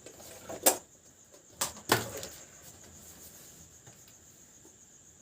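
A few sharp clicks and knocks, about three in the first two seconds, from handling the table fan motor's wires and parts while making the connection.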